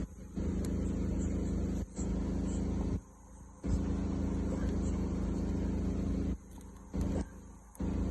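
A steady low hum and rumble, like an idling engine heard from inside a vehicle, that cuts out abruptly several times.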